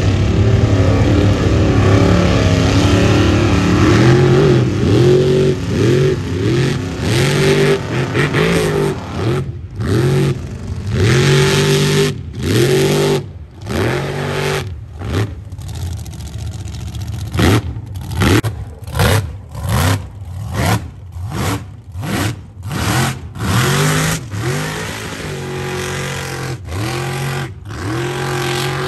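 Mega truck engine revving hard in a mud pit, its pitch climbing and dropping again and again. Past the middle it breaks into a quick run of short rev blips, about one a second, then settles to a steadier note near the end.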